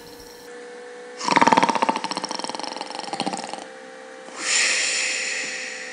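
A person snoring: a rattling, fluttering in-breath about a second in, lasting some two and a half seconds, made by the soft palate beating against the walls of the throat as the relaxed airway narrows in sleep. It is followed by a softer, hissing out-breath.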